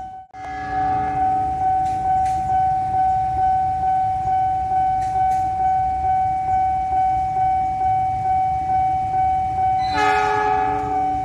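Level-crossing warning bell ringing in a steady repeating pattern, about one and a half strikes a second. An approaching diesel locomotive's horn fades out just after the start and sounds again, loudly, about ten seconds in.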